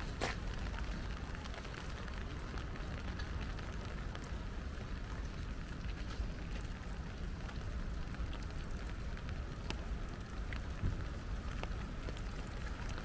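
Light rain falling, with scattered sharp drop ticks over a steady low rumble.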